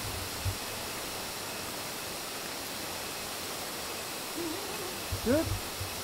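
Steady rushing noise of Sekumpul Waterfall, an even hiss of falling water. About five seconds in, a short faint rising call sounds over it.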